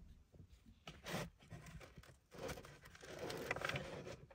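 Cardboard pizza box rustling and scraping as a slice is pulled out of it: a short burst about a second in, then a longer, louder crackly stretch near the end.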